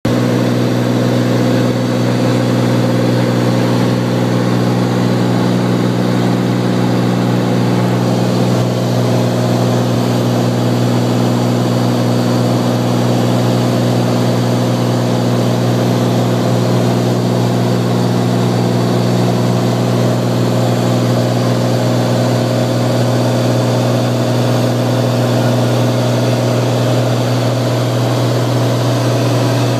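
Cirrus SR20's piston engine and propeller running steadily in cruise flight at about 2420 rpm, heard inside the cabin as an even, low drone.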